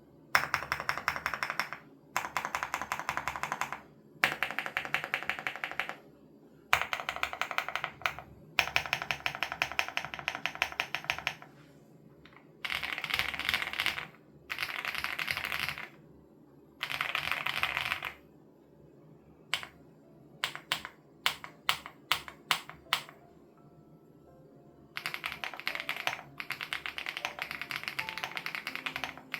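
Typing on a Crush80 Reboot mechanical keyboard with HMX Hyacinth switches. The keystrokes come in quick runs a second or two long with short pauses between them, and there is a stretch of slower, separate key presses about two-thirds of the way through.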